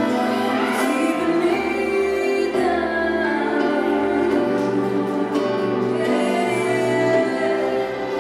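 A song plays: a sung vocal line over sustained instrumental accompaniment, at a steady level.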